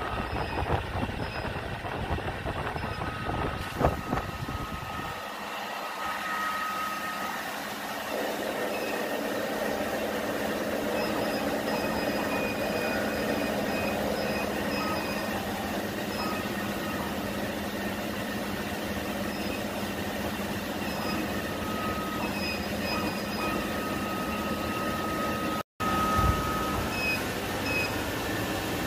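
Laser cutting machine running: a steady whirring hum with short high whines that come and go, and a single knock about four seconds in.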